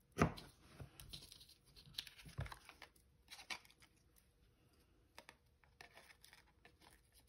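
Scissors trimming the ribbon ends, with light rustling of paper and ribbon being handled. A sharp snip comes about a quarter second in and another near two and a half seconds, with softer clicks scattered through.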